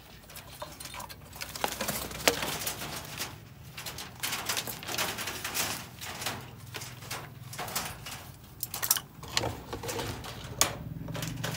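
A string of irregular clicks, knocks and rustles from a wire-mesh bird cage being approached and handled.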